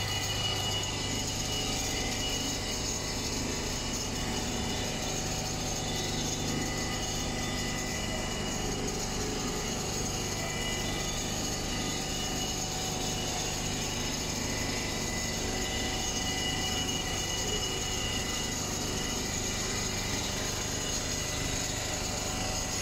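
Computer-controlled frame quilting machine stitching: a fast, even mechanical clatter from the needle head over a steady machine hum.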